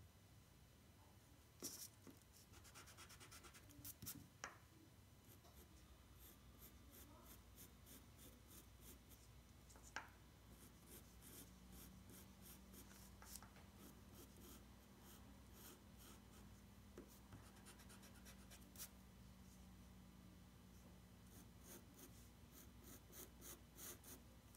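Faint pencil sketching on paper: a graphite pencil laid down in quick scratchy strokes that come in short runs, with a few sharper ticks as the pencil touches down.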